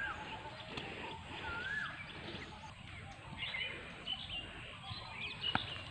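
Birds calling: two whistled notes that rise and fall in the first two seconds, then a cluster of short high chirps from the middle on, over a faint outdoor background hiss.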